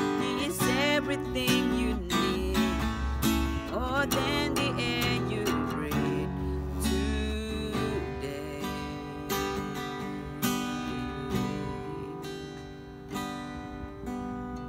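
Acoustic guitar strummed in steady chords, with a man's singing voice holding wavering notes over it for the first few seconds; after that the guitar plays on alone.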